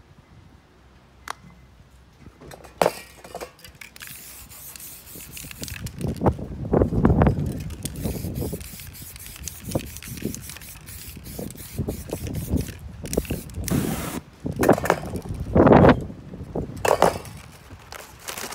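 Aerosol spray-paint can spraying black paint over paper stencil masks in short, repeated hisses, starting about three seconds in. Several dull thumps and rustles of the masks and cans being handled come in between, the loudest in the second half.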